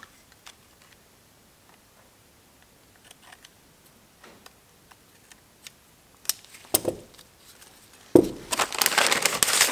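Faint small clicks and handling noises while a piston ring is fitted onto a piston with ring pliers, then a few sharper clicks and, near the end, a loud burst of dense rustling and clatter lasting about a second and a half.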